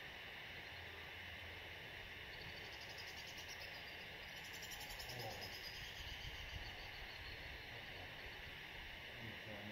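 Faint chorus of insects trilling, with a higher, finely pulsed trill that swells and fades about halfway through.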